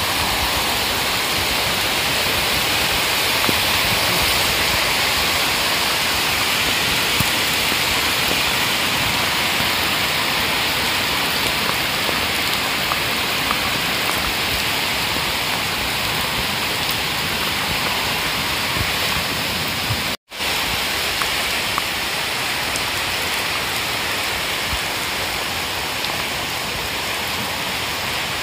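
Heavy rain falling on the water of a fish pond, a steady even hiss of drops splashing on the surface. The sound cuts out for a split second about two-thirds of the way through.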